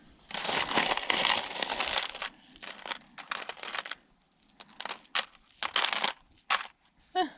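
A heap of aluminium can ring pulls being stirred and let fall by hand, jingling and rattling against each other: a dense rattle for about two seconds, then scattered single clinks.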